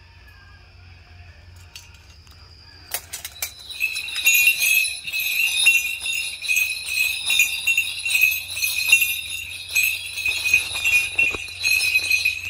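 Bells on dance regalia jingling continuously as the wearer moves, starting suddenly about three seconds in, with sharp metallic clinks among the ringing.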